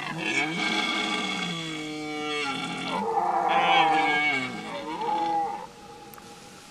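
A red deer stag gives a long, deep rutting roar in two surges, the second louder. It breaks off about a second before the end.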